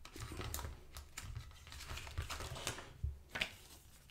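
Paper and card inserts being handled and lifted out of an open Blu-ray steelbook case: light rustling with a run of small clicks and taps, and one sharper click about three and a half seconds in.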